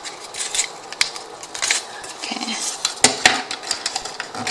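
Thin laser-cut MDF wood pieces clicking and clattering against each other and the tabletop as they are handled and slotted together. There is a sharp click about a second in and a quick run of clicks around three seconds in.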